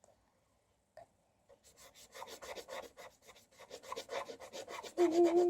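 A paintbrush scrubbed quickly back and forth on paper, a dry rubbing in strokes several a second, starting about a second and a half in.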